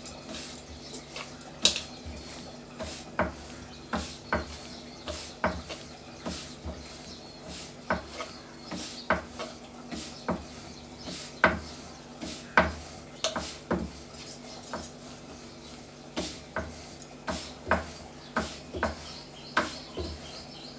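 Rolling pin clacking and rolling on a round wooden chakla board as paratha dough is rolled out: irregular short knocks about one or two a second, over a faint steady hum.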